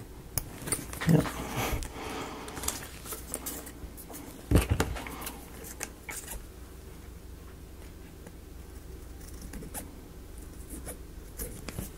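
Small scissors snipping through thin paper, with scattered light clicks and paper rustling as the cut pieces are handled, and a soft thump about four and a half seconds in.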